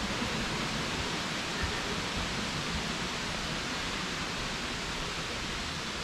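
Steady, unbroken rush of running water.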